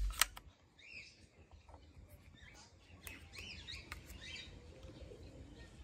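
Faint birds chirping in the background, short high calls about a second in and again around three seconds in. A couple of sharp plastic clicks at the very start from handling the toy shotgun.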